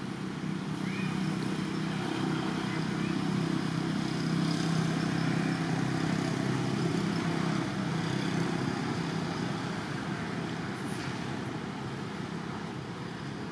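A motor vehicle engine running with a steady low hum. It grows louder over the first several seconds, then slowly fades.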